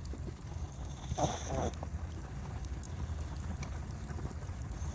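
Steady low wind rumble on the microphone, with a short breathy sound in two quick pulses about a second in.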